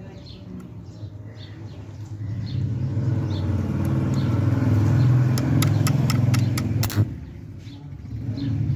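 A low engine hum that swells about two seconds in and eases off after a sharp click about seven seconds in. A quick run of clicks, about five a second, comes just before that click, and faint chirps sound early on.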